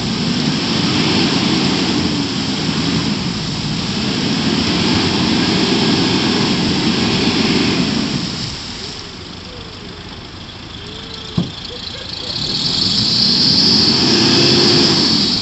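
Nissan Patrol Y61 engine revving in long surges as its wheels spin in deep mud, with the hiss of the spinning tyres throwing mud. The revs drop back for a few seconds in the middle, then rise again near the end, and a single sharp knock comes about eleven seconds in.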